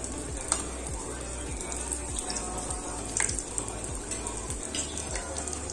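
Dough balls deep-frying in hot oil in an aluminium pot: a steady bubbling sizzle with scattered sharp pops. Background music with a steady beat plays underneath.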